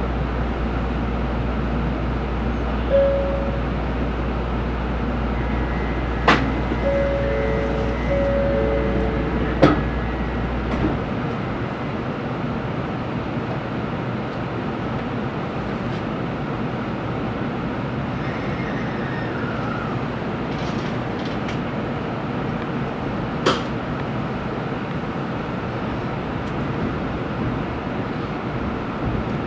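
Inside a Tokaido Shinkansen car standing at the platform and then pulling away: steady cabin noise, a few short electronic tones and sharp clunks in the first ten seconds, and a low hum that cuts out about eleven seconds in. The train starts moving about nineteen seconds in.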